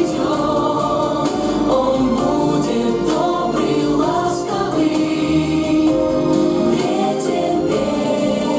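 Children's vocal ensemble singing together in chorus, held sung notes over an instrumental backing with bass.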